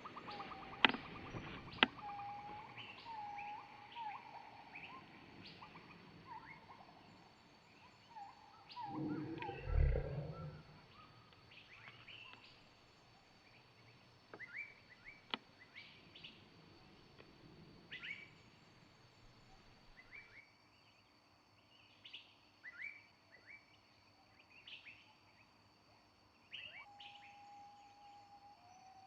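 Several birds chirping and calling in short, scattered notes, with a brief low rumble about nine seconds in.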